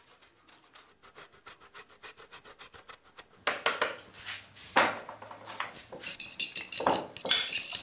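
Block of grana padano rubbed on a cheese grater over a glass bowl: quick, rhythmic rasping strokes, faint at first and louder from about three and a half seconds in, with a few light ringing clinks near the end.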